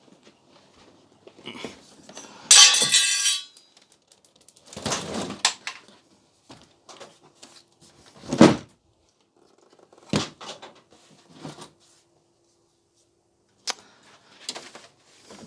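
Clatter and knocks of hard objects being handled: a ringing clatter about two and a half seconds in, a scraping rustle around five seconds, a heavy dull thud about eight and a half seconds in, and a few sharp knocks later.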